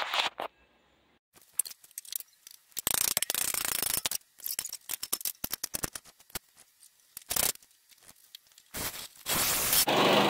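Scrapes, rustles and clunks of a sheet-metal frame patch being handled and set against the van's frame, the loudest scraping about three seconds in. Just before the end a cordless drill starts running steadily.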